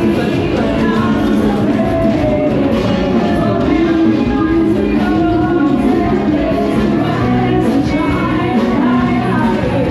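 Loud rock-style music with a singing voice, playing steadily.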